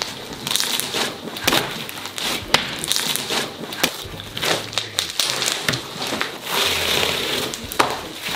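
Stiff homemade slime being squeezed and stretched by hand, giving an irregular run of crackling and popping clicks; the slime is hard from too much activator.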